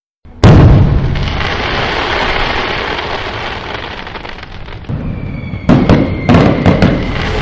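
Fireworks sound effect: a sudden loud bang about half a second in, a long crackle that slowly fades, then several sharp bangs near the end.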